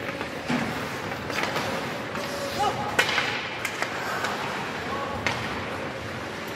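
Sharp cracks and knocks from play at a youth sports match, half a dozen spread over a few seconds, the loudest about three seconds in, over a steady background of voices.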